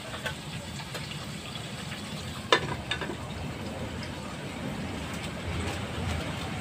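Food frying in a wok, with a steady sizzle. About two and a half seconds in, a sharp clank and then a lighter one as the metal lid is set on the wok.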